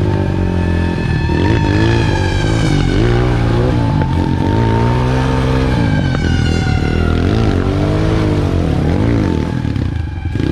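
Dirt bike engine revving, its pitch rising and falling several times in irregular swells.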